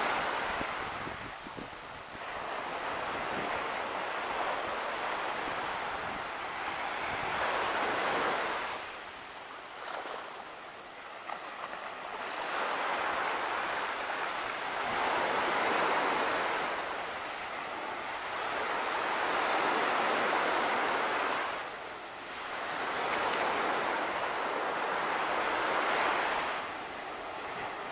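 Small ocean waves breaking and washing up a sand beach at the water's edge, a hissing surf that swells and fades every five or six seconds.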